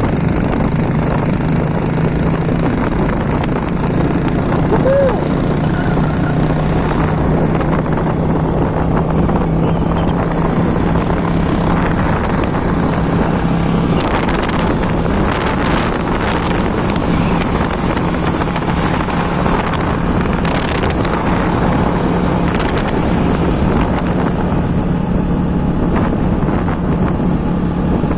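Motorbike engine running at a steady speed while riding, an even engine hum under a loud, steady rush of noise.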